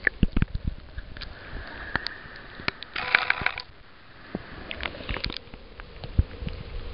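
Pool water sloshing and bubbling around a camera held at and below the surface, with scattered clicks and knocks and a short burst of splashing about three seconds in.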